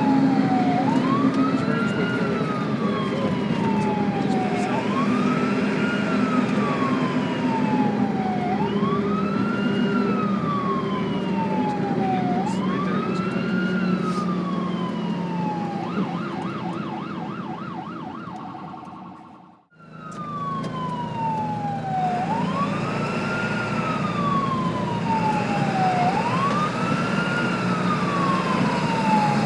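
Ambulance siren sounding a slow wail: each cycle rises quickly and falls slowly, repeating about every four seconds over the low rumble of the vehicle. About sixteen seconds in it switches briefly to a fast warble, then fades out and the slow wail starts again.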